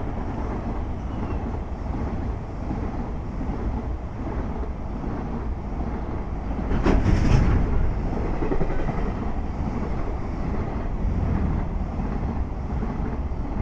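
Container freight train's wagons rolling past at speed: a steady rumble and rush of steel wheels on rails, briefly louder about halfway through.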